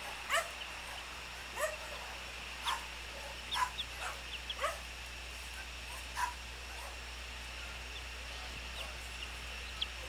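Flying foxes giving short, rising squawks, about one a second for the first six seconds and once more near the end, over a steady high hiss.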